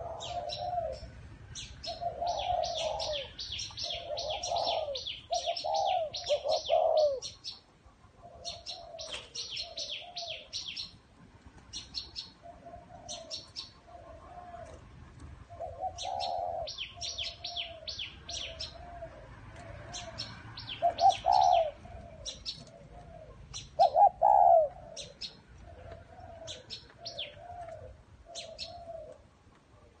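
Spotted doves cooing in repeated low phrases, the loudest coos a little past the middle, while small birds keep up quick, high chirping over them.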